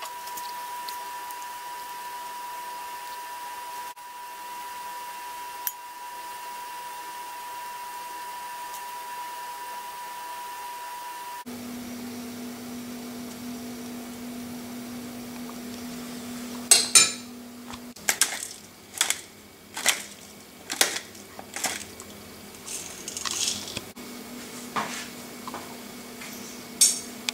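A steady hum, then from about two-thirds of the way in about ten sharp clinks and knocks of a ceramic plate and utensils being handled.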